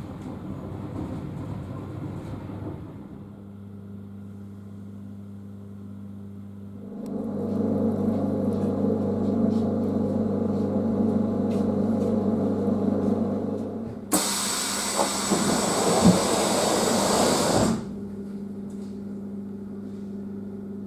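Onboard equipment of an ЕПЛ9Т electric multiple unit humming steadily, the hum growing louder about seven seconds in. About halfway through comes a loud hiss of released compressed air lasting about three and a half seconds, and then the hum goes on.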